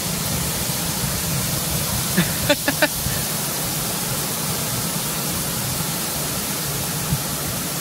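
Water pouring down the face of a wall fountain and splashing at its base: a steady rushing hiss.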